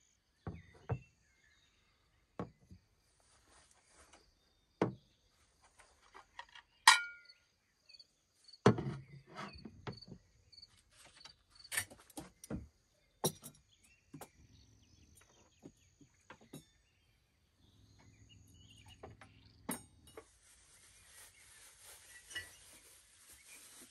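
Scattered clinks and knocks of hard objects being handled, one of them a loud ringing metallic clink about seven seconds in. A steady hiss comes in near the end.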